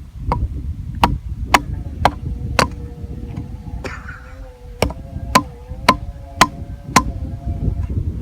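Sharp striking blows in two runs of five, about two a second, with a brief pause between the runs. A faint steady ringing tone sits under the second run, and wind rumbles on the microphone throughout.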